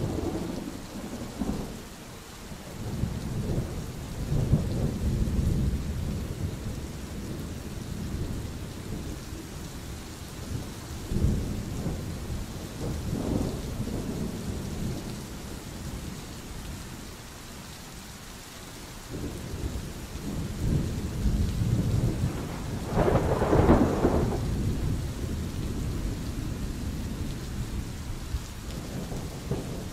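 Steady rain with thunder rumbling again and again, each roll swelling and dying away; the loudest, sharpest peal comes about three-quarters of the way through.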